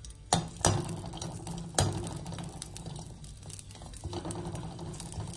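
A metal spoon stirring and knocking against a pan while shallots and garlic are sautéed in oil, with sharp clinks about a third of a second in, just under a second in and near two seconds in, over a low steady hum.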